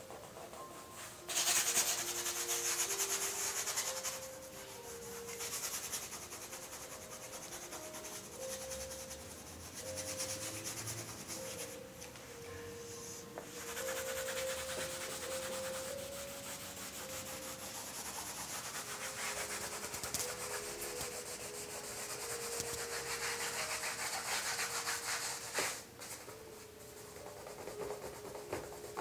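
Hand rubbing acrylic paint and charcoal into a canvas, a dry scrubbing that comes in stretches of a few seconds with short pauses, loudest about two seconds in. Faint held notes sound underneath.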